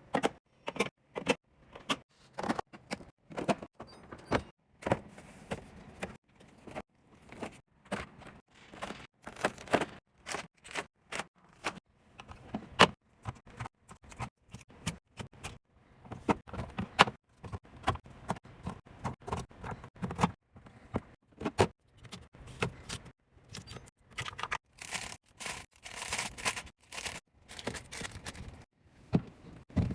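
Containers, bottles and packaging being handled, set down and moved around while a refrigerator is sorted and restocked: an irregular run of short clicks, clacks and knocks, several a second.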